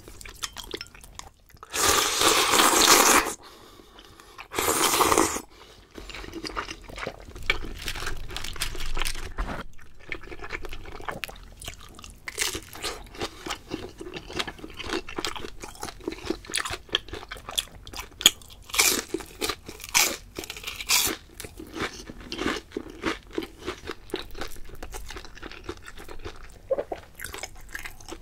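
Close-miked eating sounds: two loud crunchy bites a few seconds in, then steady chewing with many small wet clicks and crunches.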